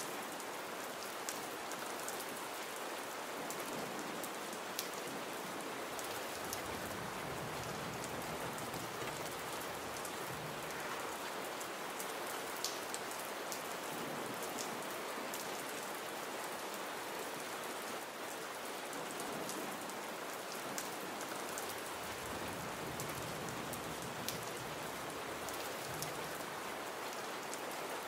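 Gentle rain falling steadily: an even hiss with scattered sharp drop ticks.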